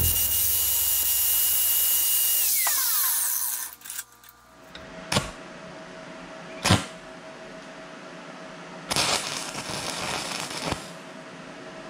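Corded angle grinder running at full speed, a steady high whine with hiss as it cuts steel held in a vise, then winding down about two and a half seconds in. After a pause come two sharp snaps, then about two seconds of stick-welding arc crackle near the end.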